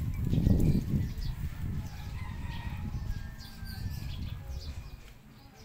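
Low rumbling noise on the phone's microphone, loudest about half a second in and fading away, with birds chirping in the background.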